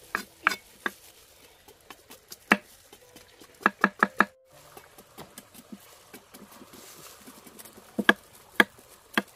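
A large knife chopping and scraping wild tubers on a wooden board: a series of sharp knocks, with four in quick succession about four seconds in. After a brief break, fainter knife strokes come over a faint trickle of running water.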